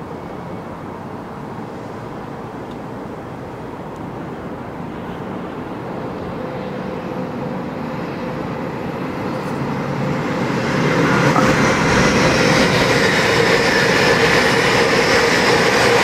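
A train approaching along the track, growing steadily louder for about ten seconds, then running close by and loud from about eleven seconds in, with wheel-on-rail noise and a steady tone.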